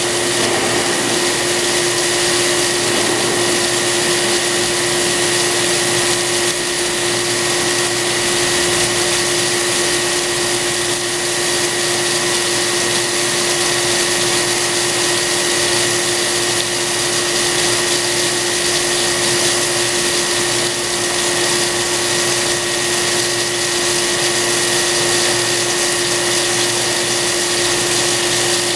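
CNC cylindrical grinder straight-grinding a steel shaft under a flood of coolant: the steady hiss of wheel and splashing coolant, with a constant hum and a high whine from the machine's spindle and drives.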